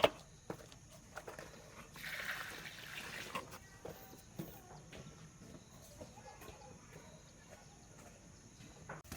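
A pig squealing for about a second and a half, starting about two seconds in, after a couple of sharp knocks at the start.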